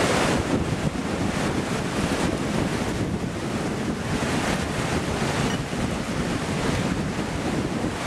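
Steady outdoor rushing noise that swells and eases a little, with wind buffeting the microphone.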